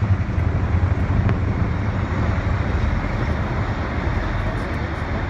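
Formation of RAF Chinook tandem-rotor helicopters, with smaller helicopters, passing overhead: a loud, steady, low rotor throb that fades slowly as they move away.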